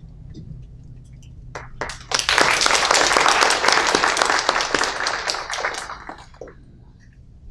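Applause from a small audience: a few scattered claps about a second and a half in, then a burst of clapping for about four seconds that tapers off.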